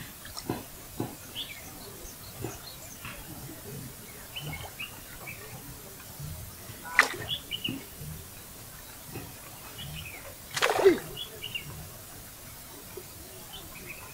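Scattered short bird chirps. There is a sharp knock about seven seconds in, and a louder short call falling in pitch about ten and a half seconds in.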